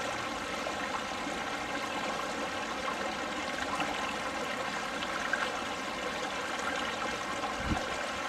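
Fast-moving mountain stream running over rocks, a steady rush of water, with one soft low thump near the end.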